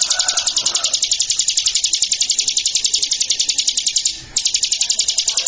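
Prenjak lumut singing a continuous rapid high trill of about ten even notes a second, breaking off briefly about four seconds in and then resuming.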